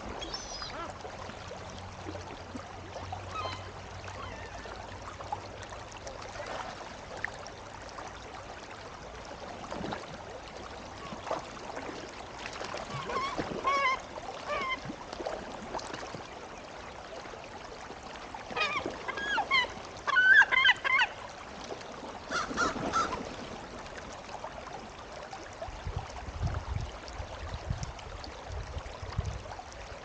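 Gulls calling in clusters of short cries, loudest about two-thirds of the way through, over the steady rush of a shallow rocky stream. A few low rumbles near the end.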